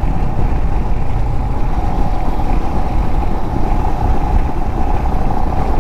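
Royal Enfield Himalayan motorcycle cruising on a highway: a steady, unbroken engine drone mixed with wind and road noise.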